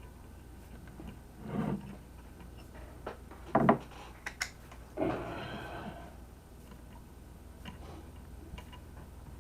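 Small parts of a fuel pump assembly being handled and fitted: a few scattered clicks and knocks, the loudest two close together mid-way, and a scraping rub lasting about a second a little after.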